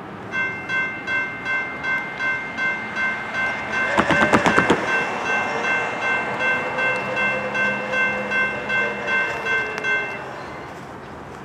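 Railroad grade-crossing warning bell ringing in even strokes, about three a second, as the crossing gate comes down; the ringing stops about ten seconds in. A quick run of sharp clicks about four seconds in is the loudest moment.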